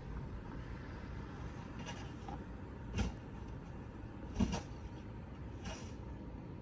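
Short clicks of a car's dashboard select/reset knob being pressed and twisted, two louder clicks about a second and a half apart, over a steady low rumble.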